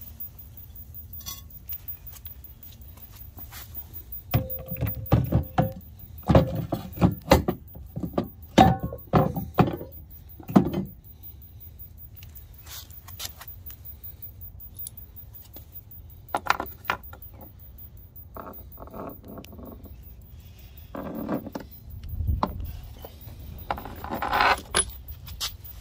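Metal hardware and hand tools clinking and clattering as they are handled, in several bursts of sharp clicks and knocks with pauses between.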